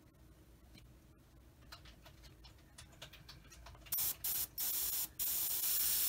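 Airbrush spraying primer onto test paper at about 18 psi: a hiss of air and paint that starts about four seconds in, first in two short bursts, then in longer sprays.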